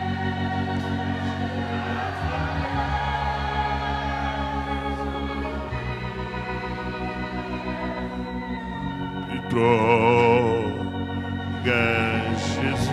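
Electronic organ holding sustained chords, its bass note shifting twice. Near the end a louder, wavering note swells over it twice, each time for about a second.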